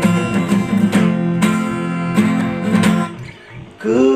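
Acoustic guitar strumming chords in a slow rock song. The strumming drops away about three seconds in, and a wavering held note comes in just before the end.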